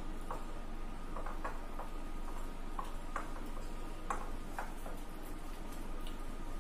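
Metal spoon clinking and scraping against a glass bowl while stirring a thick, crumbly mixture of coconut and milk powder: irregular light ticks, a few a second.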